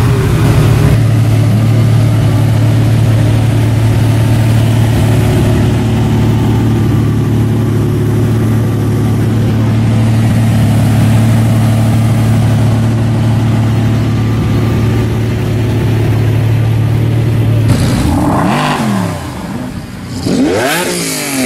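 Sports car engines running at a steady idle close by. Near the end the steady sound drops away and an engine is revved twice, the pitch climbing and falling each time.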